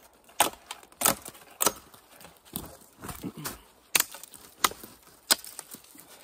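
Machete-style bushcraft knife chopping branches off dead wood: a run of about eight sharp wooden chops, roughly every two-thirds of a second.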